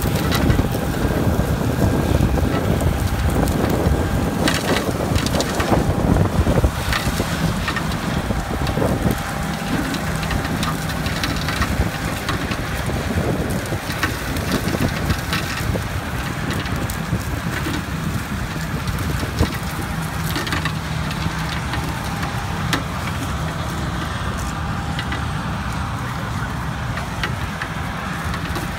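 Rumbling, crackling noise of a farm vehicle driving over harvested canola stubble, with scattered clicks and a low steady hum that comes and goes in the second half.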